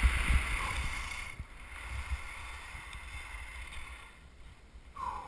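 Skis hissing over hard-packed snow, with wind buffeting the helmet-mounted microphone. The hiss drops off after about a second as the skier slows, leaving a faint low rumble.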